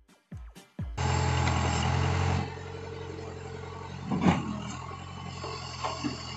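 Backhoe loader's diesel engine idling with a steady low hum. It is louder for the first second and a half, then settles lower, with a short knock about two-thirds of the way through. It is preceded by a few short falling blips.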